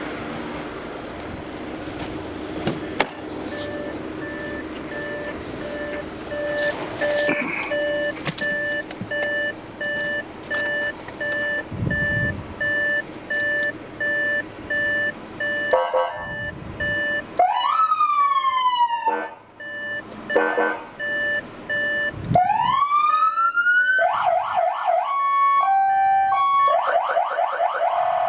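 AS8910 200-watt electronic siren running through its tones. First comes a buzzy tone pulsing on and off about once a second. About two-thirds of the way in it changes to rising and falling sweeps, and near the end to a fast warble stepping between high and low tones.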